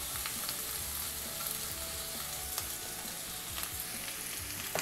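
Sliced onions just added to hot coconut oil in a kadai, sizzling with a steady hiss and scattered small crackles, with a short click near the end.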